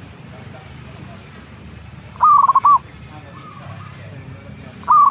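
Zebra dove (perkutut) singing its cooing song: two phrases about two and a half seconds apart, each a gliding note followed by a quick run of short coos, the second starting near the end. Fainter calls of other birds sit underneath.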